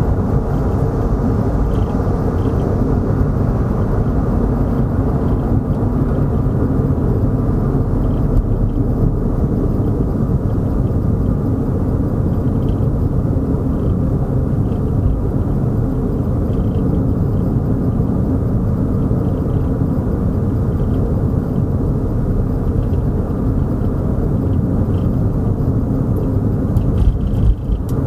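Steady road and engine noise of a car being driven, low-pitched and even throughout, with a brief louder moment near the end.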